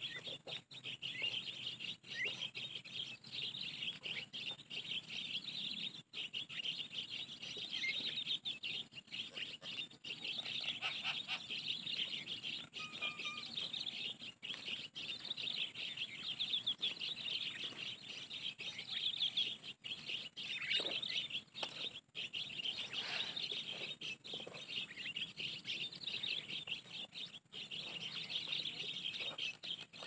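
Dense, continuous high chirping and chattering of many small birds, with a few clearer whistled notes now and then.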